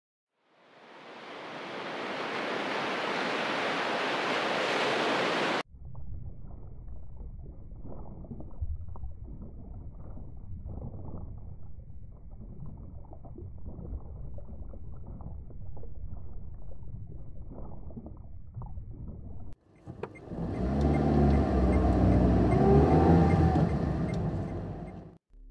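A loud rush of noise fades in and cuts off suddenly, giving way to a muffled underwater rumble with small crackles. Near the end a car drives along a road, with engine tones rising and falling over the tyre roar.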